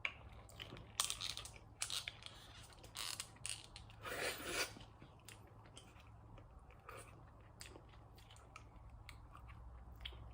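Close-miked chewing of McDonald's chicken nuggets: soft crunches and wet mouth clicks, with a longer noisy crunch about four seconds in, over a faint steady low hum.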